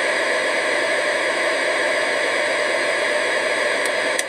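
Steady, loud hiss with no tone or rhythm in it, and two short ticks near the end.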